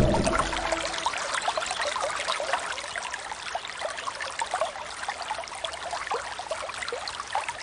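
Water trickling and bubbling steadily, with many small droplet sounds.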